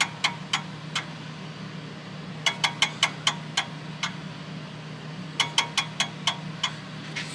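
Weinig P700 moulder's left cutterhead spun by hand, its knife ticking against the steel fence on each pass: three runs of quick, ringing clicks, each run slowing as the head coasts. The knife is set at its maximum depth of cut, touching the fence a little hard, close to the sound wanted for a correct setting. A steady low hum runs underneath.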